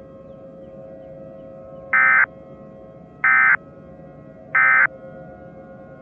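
Emergency Alert System end-of-message data tones: three short, loud buzzy bursts of SAME digital data, a little over a second apart, signalling the end of the alert. Underneath them runs a quieter steady drone of held tones.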